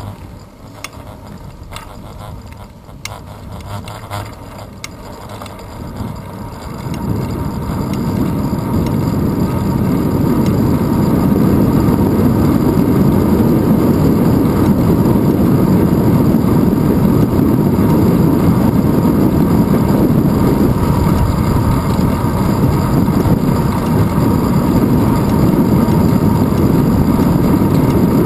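Bicycle freewheel ticking in the first few seconds. Then wind rushing over the handlebar-mounted GoPro's microphone builds over a few seconds into a loud, steady rumble as the bike picks up speed.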